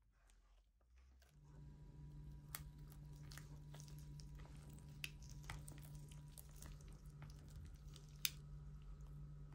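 Silicone spatula folding and scraping thick mascarpone cream in a glass bowl: faint squishy sounds with a few sharp clicks. A steady low hum comes in about a second in.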